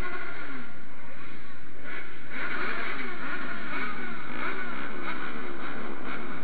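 Motorcycle engines running while riding, their exhaust note repeatedly rising and falling in pitch with the revs, over steady riding noise.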